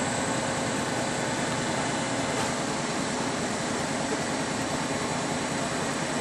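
Steady mechanical whirring hum, with a few faint steady tones running through it, from a large Kekeisen CNC milling machine running.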